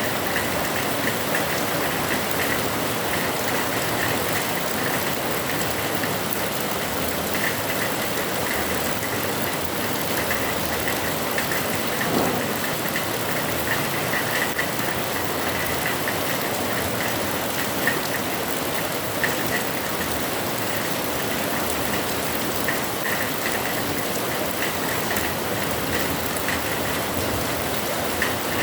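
Heavy rain falling steadily, a constant hiss with a few small knocks and drips scattered through it.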